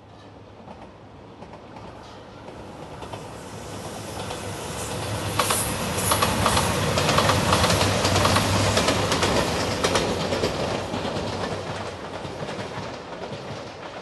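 A JR Shikoku 2700 series diesel limited-express train passes. It grows steadily louder, is loudest about halfway through with a rapid clatter of wheels over the rail joints, then fades away.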